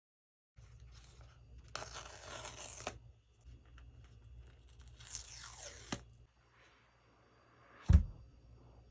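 Paper seal strips on a phone box torn off, two long rips a few seconds apart. A short, loud thump follows near the end.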